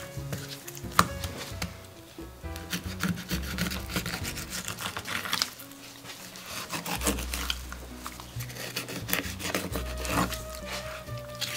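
Knife work on a cutting board, with repeated taps, clicks and scraping strokes, over background music with low sustained notes.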